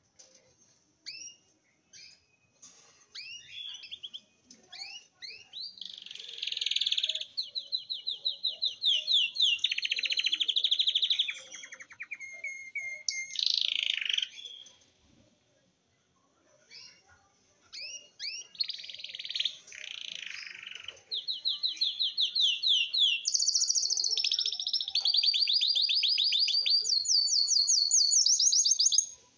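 An eight-month-old cinnamon-mutation cage finch singing its still-developing song. Scattered short chirps build into long runs of fast repeated notes and trills, with a brief pause about halfway.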